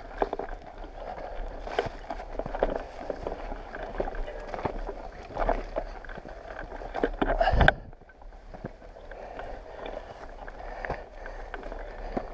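Leaves and branches rustling and scraping against loaded touring bicycles as they are pushed through dense bushes on a narrow dirt path, with the rattle and knocks of the bikes and bags. There is a loud bump about seven and a half seconds in.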